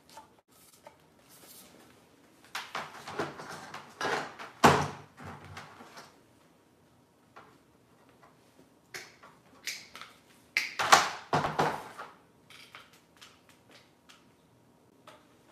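Things being handled and set down on a wooden workbench: two bouts of rustling and clatter, each with a sharp knock, about four and a half and eleven seconds in.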